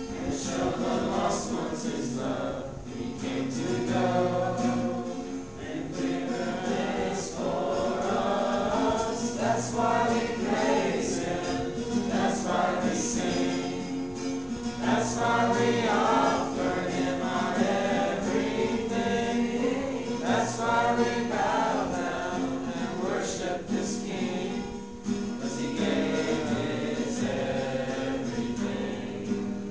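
Music: a choir singing a gospel-style worship song, with sustained held notes underneath the voices.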